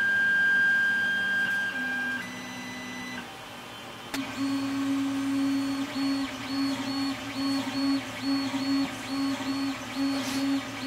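Creality Ender 3 3D printer's stepper motors whining as it prints, without vibration dampers fitted. First a steady high whine with a low hum, which shifts pitch briefly; then, from about four seconds in, a low hum and a high tone pulse together about twice a second.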